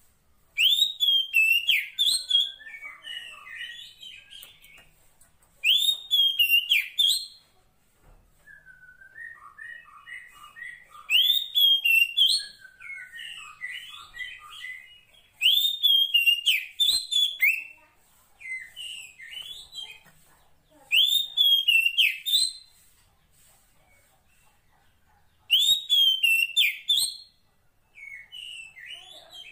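Female Oriental magpie-robin (kacer poci) calling the male: a loud phrase of arching whistled notes repeated six times, about every five seconds, each followed by softer chattering notes.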